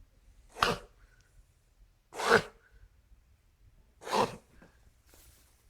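A dog with a breathing difficulty giving three short, loud, sneeze-like blasts through the nose, spaced about one and a half to two seconds apart. A fainter puff of breath follows near the end.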